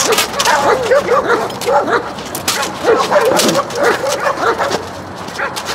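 Excited dog yipping and whining in quick short high calls, several a second, with a few sharp knocks among them.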